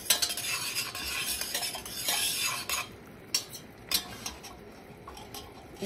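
Metal spoon stirring and scraping around the bottom of a stainless steel saucepan of heating caramel sugar syrup, a busy scraping for about three seconds, then a few separate light clinks against the pot.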